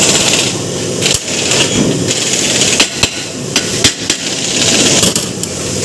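A handful of sharp, irregular metal clanks and knocks as hand tools are handled and struck on a steel tool cart, over the steady background noise of a car repair workshop.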